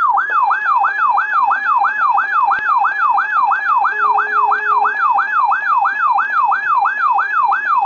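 Electronic alert tone on a weather alert broadcast: a siren-like note that sweeps down in pitch over and over, nearly four times a second, at a steady loudness.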